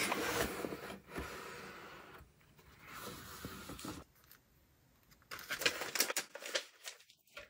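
A corrugated cardboard mailer box being opened, with rustling for the first couple of seconds. Then a plastic-sleeved stack of cards is handled and tissue paper crinkles as it is folded back, in sharper bursts near the end.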